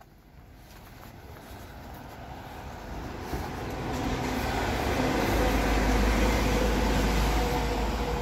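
A city bus driving past on the street below, its engine and road noise swelling as it nears and peaking a few seconds in.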